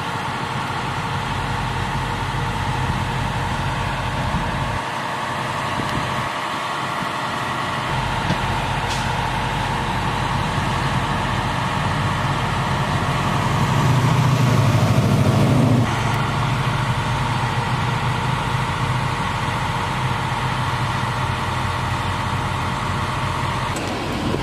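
Large truck engines idling steadily, the emergency vehicles and tow truck at the scene. Just past the middle the sound swells louder for about two seconds, then drops back abruptly.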